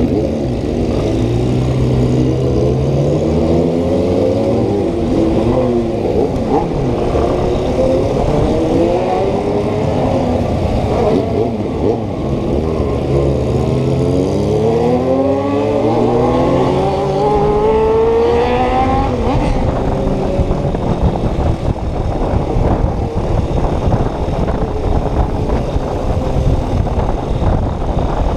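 Yamaha Ténéré 250's single-cylinder engine revving up and dropping back again and again as the bike accelerates through the gears, its pitch repeatedly rising and falling. After about nineteen seconds the sound turns to a rougher, steadier noise with no clear rising pitch.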